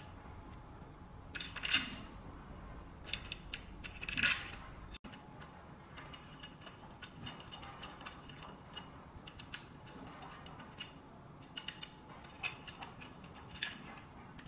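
Irregular light clicks and taps of metal trolley parts being handled while the rotating component is screwed onto the main shaft, with a few louder knocks.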